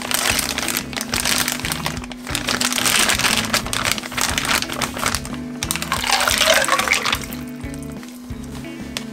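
Plastic zip-top bag crinkling and rustling as vegetable sticks are pushed into it, then liquid poured into the bag for about a second near the end, over background music with a steady beat.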